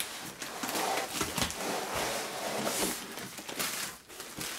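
Handling of a cardboard shipping box and the inflatable air-column plastic packaging being slid out of it: continuous rustling, scraping and small crinkles, with a brief lull near the end.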